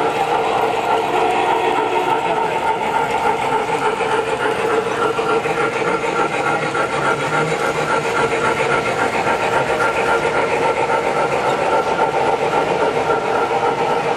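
MTH O-gauge model of a DM&IR 2-8-8-4 Yellowstone steam locomotive running with its train on three-rail track: a steady rumble of wheels on the rails mixed with the model's electronic steam-locomotive sound effects.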